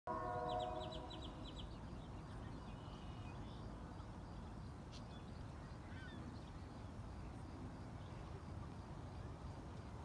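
Lakeside bird sounds: a loud, drawn-out waterbird call opens the clip, with quick, high repeated chirps from a small bird over the first second and a half. A single short chirp comes about six seconds in, over a steady low background noise.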